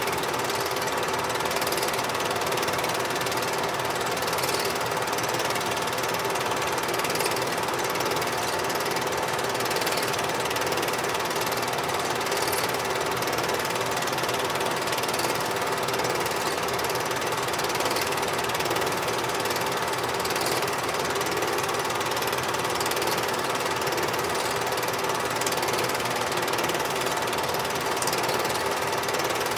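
Super 8 film projector running, a steady mechanical whir and clatter from its motor and film-advance mechanism, with a constant hum and faint ticks now and then.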